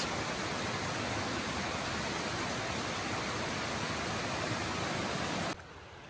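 Forest stream rushing and splashing down a small rocky cascade in a steady, even rush of water. About five and a half seconds in it cuts to a much quieter hush.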